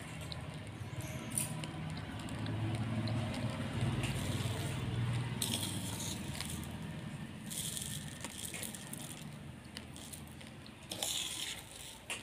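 Steel spoon scooping and stirring raw basmati rice in a stainless steel plate: dry grains rattle and scrape against the metal in three short bursts, about five, seven and a half and eleven seconds in, over a low hum.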